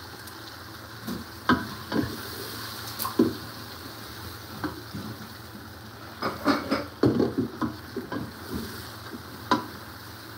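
Onions and tomatoes frying in oil in a metal pressure-cooker pot, sizzling steadily, while a wooden spatula stirs them and knocks and scrapes against the pot. The knocks come singly at first, bunch together in the middle and come once more near the end.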